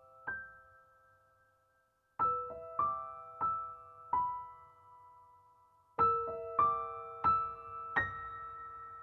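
Background music: slow, gentle piano, single notes struck one after another and left to ring and fade, with a brief pause about two seconds in.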